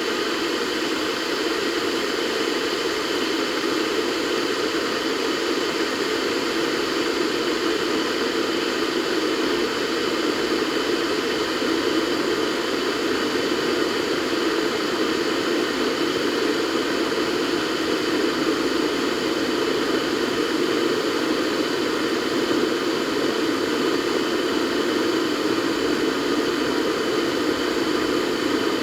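Kettle heating water: a steady rushing hiss and rumble that grows slightly louder.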